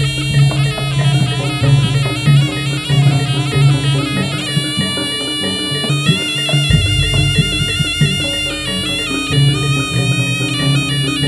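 Jaranan ensemble music: a reedy double-reed shawm (slompret) plays a wailing, sustained melody over drums. The drumming drops out for about two seconds midway, then comes back in.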